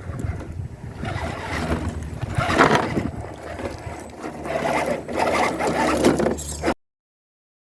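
FTX Kanyon 1/10 XL RC crawler with a 64T brushed motor driving over rough ground: uneven scraping and crunching from the tyres, with a low motor hum under it and wind on the microphone. It cuts off abruptly about seven seconds in.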